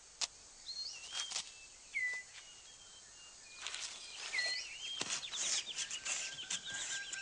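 Rainforest ambience: forest birds give short whistled calls again and again, each sweeping down and then levelling off, among many short, crisp rustles and clicks. About five seconds in, a steady high thin tone joins them, together with a rapid run of chirps.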